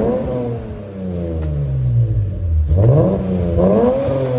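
Car engine revved twice: it jumps up and falls back toward idle, then climbs again about three seconds in before dropping away.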